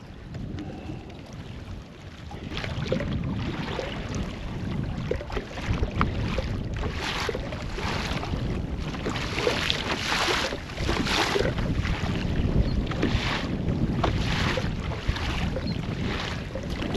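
Wind buffeting the microphone with a steady low rumble, and choppy waves repeatedly splashing and slapping against a kayak in rough water.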